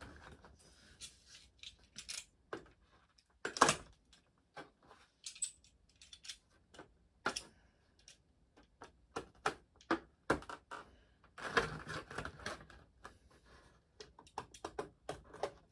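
A boxed figure and its parts being unpacked by hand: scattered irregular clicks, taps and short rustles of packaging, the loudest rustles a little under four seconds in and around twelve seconds in.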